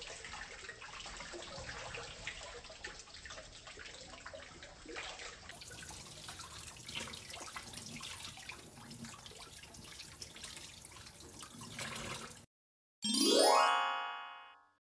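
Tap water running and splashing over a whole raw chicken into a stainless steel sink as it is rinsed, with small irregular splashes and ticks. The water cuts off suddenly near the end, and a short rising whistle-like sound effect follows and fades.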